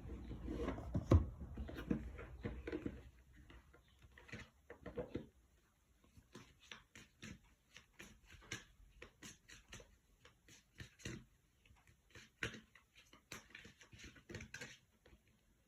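Oracle cards being handled and shuffled by hand: low thumps and rustling at first, including one louder knock about a second in, then a long irregular run of short card flicks and taps.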